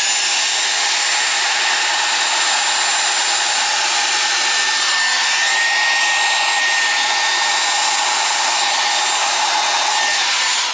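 Handheld hair dryer running steadily: a loud rush of air with a thin, high motor whine. It switches on abruptly at the start, then is switched off near the end and winds down.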